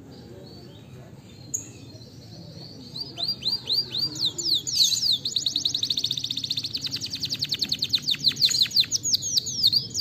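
Domestic canary singing. A few separate down-slurred whistles come about three seconds in, then a long, fast rolling trill of rapidly repeated notes, which breaks into varied notes near the end.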